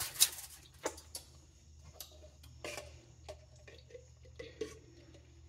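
Scattered light clicks and taps of a metal spoon and a mayonnaise jar being handled while mayonnaise is spread on a bread roll, the sharpest click just after the start. A faint steady low hum sits underneath.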